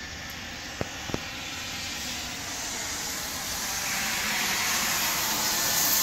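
A car driving past on the wet, slushy street, its tyre hiss building over several seconds and peaking near the end, over a steady background hiss. Two light clicks about a second in.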